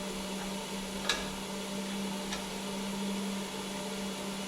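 A steady low hum, with a faint click about a second in and a fainter one a little past two seconds.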